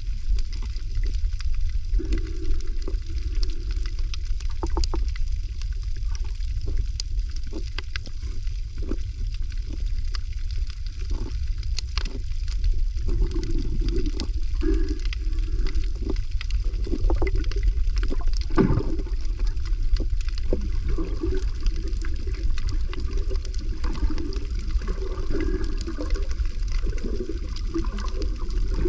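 Water gurgling and sloshing over a steady deep rumble, with scattered sharp clicks throughout.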